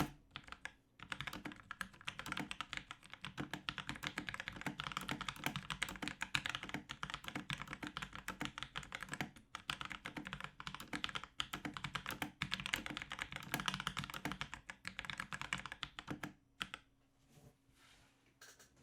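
Typing on a Drevo Tyrfing V2 mechanical keyboard with Outemu Brown tactile switches: a rapid, continuous patter of key presses. The typing stops about two seconds before the end, leaving a few faint clicks.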